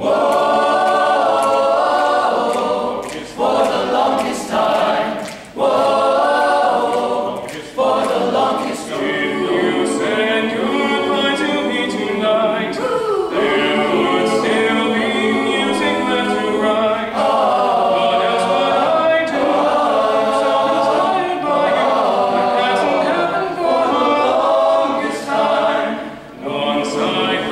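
High school men's choir singing, loud and continuous, with brief breaks between phrases.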